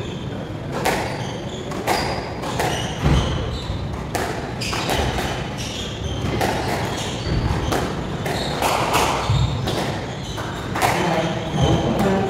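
Squash rally: a sharp knock about every second as the rubber ball is struck by the racquets and hits the walls of the court.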